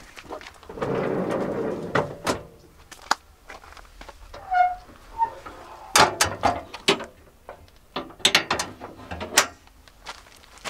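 Camping gear being handled: a run of sharp mechanical clicks and knocks, with a second-long rustle about a second in and a short squeak near the middle.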